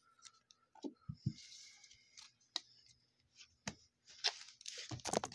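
Trading cards being handled by hand: scattered light clicks and taps with a couple of brief sliding rustles, and a quick run of sharper clicks near the end.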